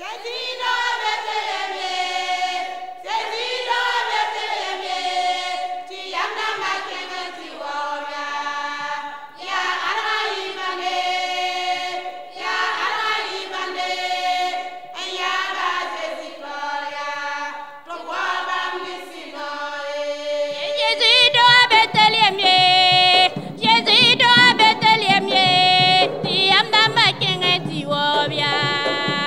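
Women's choir singing unaccompanied in phrases of two to three seconds with short breaks between them. About twenty seconds in the singing turns fuller and louder, with deeper voices underneath.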